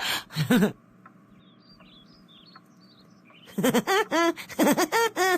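Faint, short, high bird chirps in a lull between bursts of a cartoon voice. After about three and a half seconds a voice takes over with a quick run of short rising-and-falling syllables.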